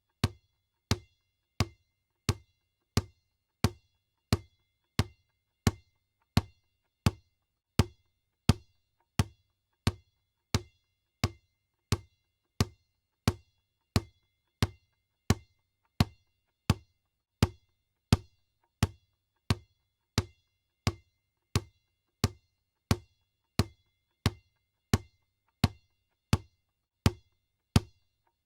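Basketball bouncing on the floor in a steady dribble, one bounce about every three-quarters of a second, each of about the same loudness with a faint ring after it.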